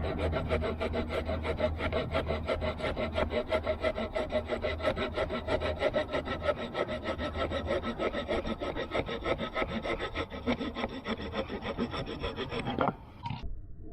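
The small wood-saw blade of a Victorinox Ranger Swiss Army knife cutting through a chunk of wood, in quick, steady back-and-forth strokes. The sawing cuts off abruptly near the end.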